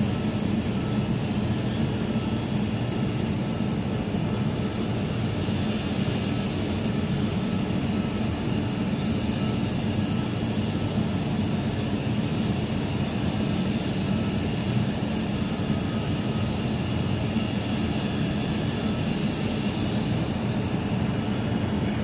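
Power plant machinery running with a steady low rumble and a few faint steady tones above it.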